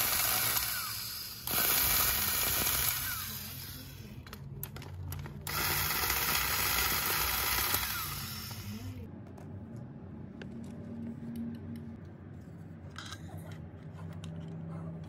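Power-Kraft electric circular saw's brushed motor switched on in three short runs, the last about three seconds long, each starting abruptly with a harsh high hiss over the whine; its carbon brushes spark heavily, which the owner puts down to new brushes not yet worn to shape. After that only fainter handling sounds.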